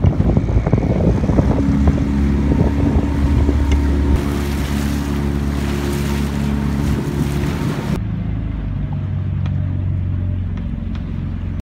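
A small motor boat's engine running steadily at cruising speed, with wind and water rushing along the hull. About eight seconds in the sound changes to a steadier engine hum with much less wind and water noise, heard from under the boat's canopy.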